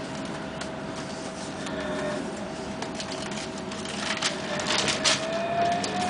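Inside a moving Bogdan trolleybus: the electric drive whines at a steady pitch that rises slightly near the end, over running noise, with a burst of rattling and clicking about four to five seconds in.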